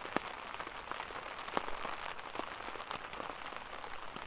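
Steady rain falling on a tarp overhead, with many separate drops ticking sharply on the fabric.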